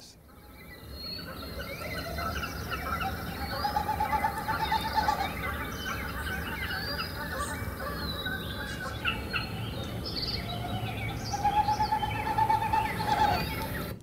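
Wilson's snipe winnowing in its display dive: a hollow, pulsing "whoo" that rises and then falls, heard twice, made by air rushing past its stiff outer tail feathers. Other birds chirp and trill throughout.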